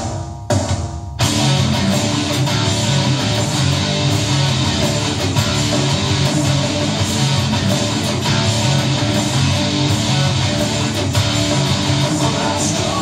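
Gibson Les Paul Studio electric guitar played through an amplifier: a riff that stops briefly twice in the first second or so, then runs on without a break.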